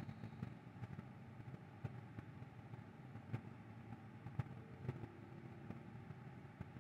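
Quiet outdoor ambience: a faint, steady low rumble with a few soft ticks scattered through it.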